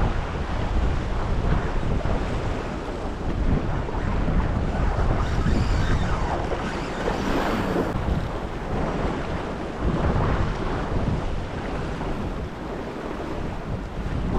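Steady wind buffeting the microphone over waves washing against the jetty.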